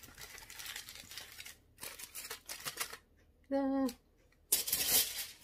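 Aluminium foil crinkling and crackling in three stretches as it is folded and pressed tightly around a roast, with a brief hummed voice sound a little past halfway.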